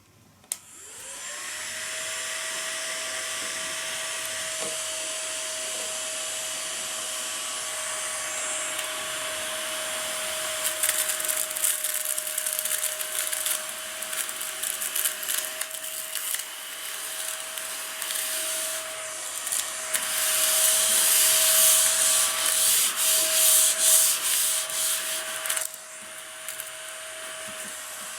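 Small battery-powered Daiso desktop vacuum cleaner switched on with a click, its motor spinning up within a second to a steady whine. From about a third of the way in, irregular rustling and clicking is added as material is drawn into the nozzle, loudest a little after two-thirds of the way through.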